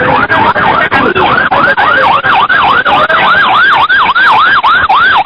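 Rescue vehicle's electronic siren in fast yelp mode: a loud up-and-down wail repeating about three times a second.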